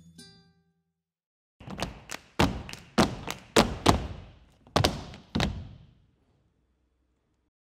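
Flamenco dancers' shoes stamping on a stage floor: about ten sharp heel-and-sole strikes over some four seconds in an uneven rhythm, each ringing briefly in the hall.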